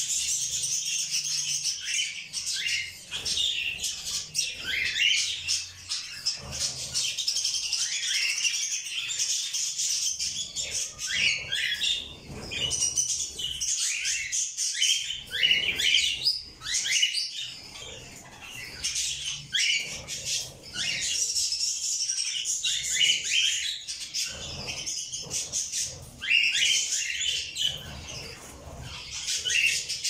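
A flock of cockatiels chirping and calling without pause, many short calls and quick downward whistles overlapping one another.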